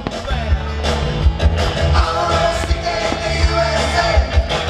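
A song with a singer over a steady drum beat and bass, loud and continuous.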